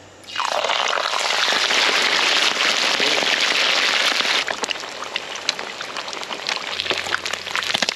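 Whole menpachi (soldierfish) dropped into hot oil in a wok and deep-frying: a sudden loud sizzle of frothing oil starts within the first half second. About four seconds in it settles into a quieter crackle with many small pops.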